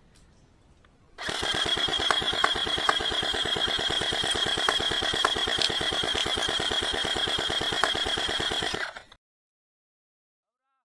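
Airsoft replica firing a long full-auto burst: a rapid, even buzz of shots with a steady high whine, lasting about seven seconds and cutting off abruptly.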